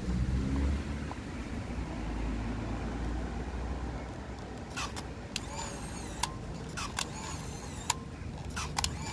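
A motor vehicle's engine runs as a low rumble, loudest in the first few seconds and then steadier. Short high chirps, like small birds, come several times over it.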